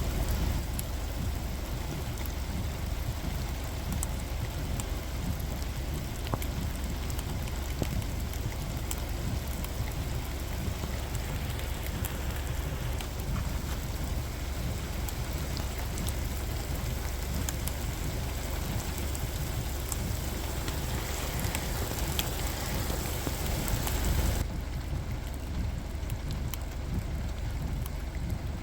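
Heavy rain falling steadily, with many drops tapping close to the microphone over a steady low rumble. About 24 seconds in, the hiss suddenly loses its top and turns duller.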